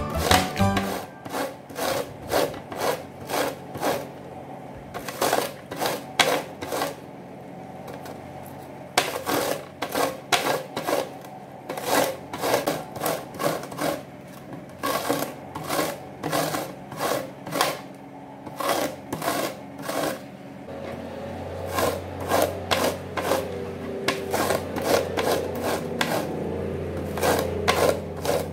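Fresh corn cob scraped back and forth across a plastic corn grater's teeth: repeated rasping strokes, about two a second, in runs with brief pauses, as kernels are cut off.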